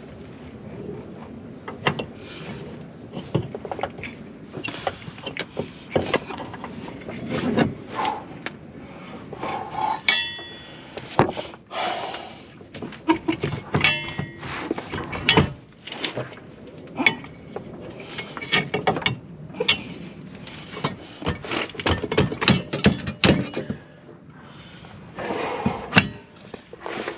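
Irregular metallic clicks, knocks and clinks of hand tools and suspension parts being worked while a new drive axle is fitted into the hub; a couple of the knocks ring briefly.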